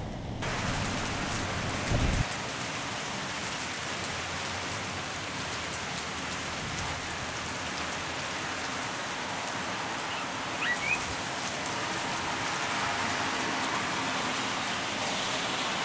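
Steady rain falling, a continuous even hiss, ahead of a hail storm. A brief low thump about two seconds in is the loudest moment.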